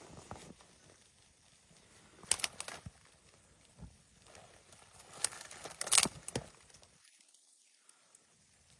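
Crinkling and rustling, with two clusters of sharp clicks: one about two and a half seconds in, a louder one about five to six seconds in.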